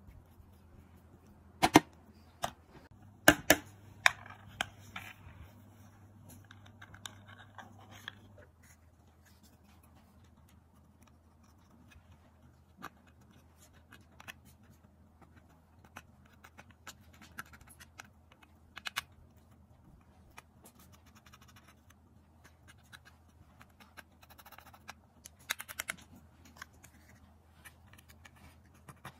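Small scraping and ticking as a tool digs eyeshadow powder out of a pressed palette pan, with a few sharp clicks about two to four seconds in.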